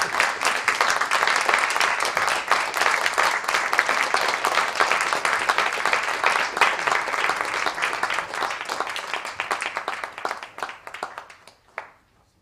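Theatre audience applauding, a dense steady clatter of many hands that thins out and dies away over the last few seconds.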